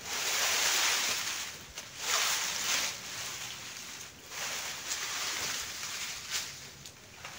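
Dry, uprooted bean plants and pods rustling and crackling as they are gathered up by hand from a pile, in several swells with short pauses between them.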